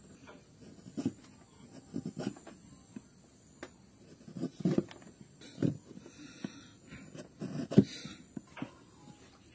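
Gouge cutting out the hollow of a wooden bowl by hand: irregular short crunching cuts and knocks, the loudest near the end.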